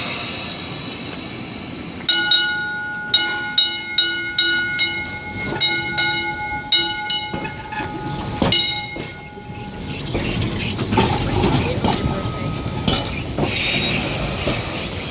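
Streetcar gong clanged about a dozen times in quick succession, each strike ringing and decaying, then the car rumbling along the rails with a short wheel squeal near the end.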